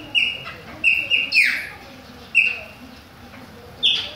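Caged chopi blackbirds singing: a string of short, loud, clear whistled notes, several in quick succession in the first second and a half, then single notes about a second apart, each note slurring down in pitch.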